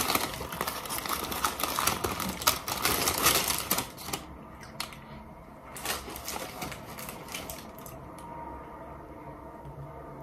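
Paper taco wrapper crinkling and rustling as it is unfolded: dense crackling for about four seconds, then a few scattered rustles.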